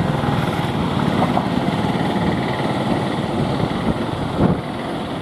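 ALCO diesel locomotive engine running steadily as it hauls the train slowly across the sea bridge, mixed with wind and surf noise. A short, louder thump comes near the end.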